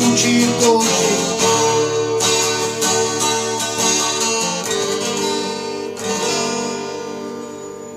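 Guitar strumming the closing chords of a song, then a final chord about six seconds in that rings and fades out.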